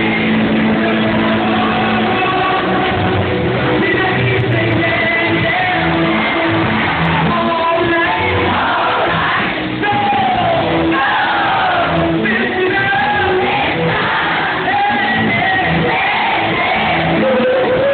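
Pop-rock band playing live, with electric guitars, bass, drums and keyboards behind a male lead singer. The recording is dull, with no treble above the upper midrange.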